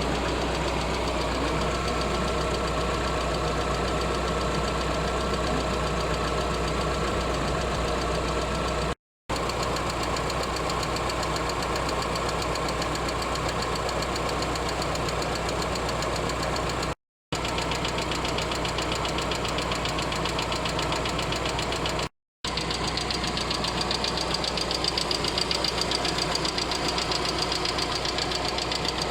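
Lada Vesta's VAZ-21127 1.6-litre sixteen-valve engine running with a rapid, even ticking knock from its hydraulic lifters (lash adjusters), the lifter noise of a high-mileage engine at 105,000 km. The sound breaks off briefly three times.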